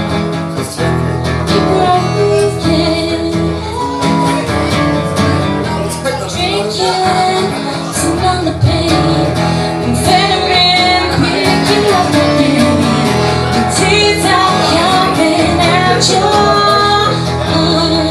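Live acoustic duo: a steel-string acoustic guitar strummed under a woman's lead vocal sung through a PA microphone.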